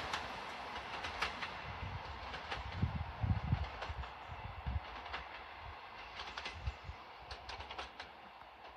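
Two coupled Class 153 diesel railcars running away down the line, their sound fading steadily, with a low rumble and scattered sharp clicks of wheels crossing rail joints.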